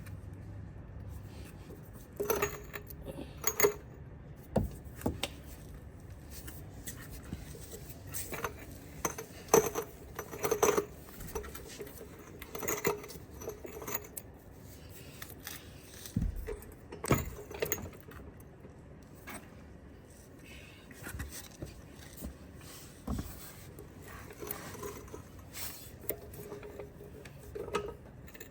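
Irregular metallic clinks, knocks and scrapes of a low-profile floor jack being set in place under the car.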